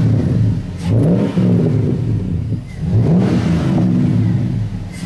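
Engine of a custom mini truck being revved, twice rising and falling in pitch over its running note.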